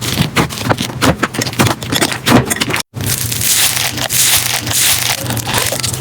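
Slime being squeezed and worked by hand, giving dense irregular crackling and popping clicks. It cuts out abruptly near the middle and resumes as a denser crackling squish.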